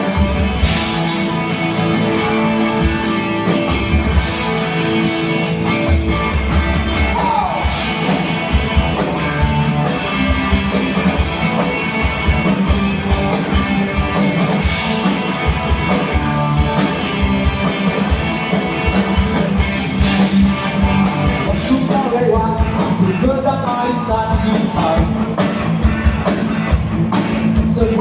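Rock song playing, electric guitars over a steady drum beat and bass.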